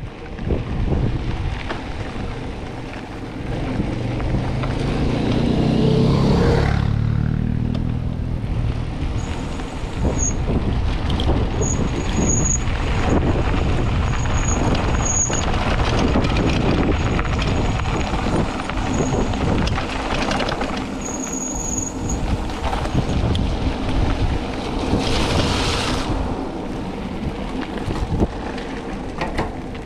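A mountain bike ridden fast down a loose dirt road: wind rushing over the camera microphone and tyres rolling on dirt and gravel, with frequent knocks and rattles from the bike going over bumps.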